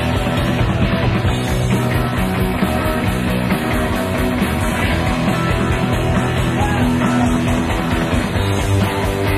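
Rock music playing continuously at a steady level.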